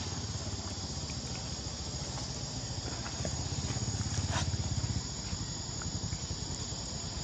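Steady high-pitched chorus of insects over a low rumble that swells about three to five seconds in, with a brief high squeak about four seconds in.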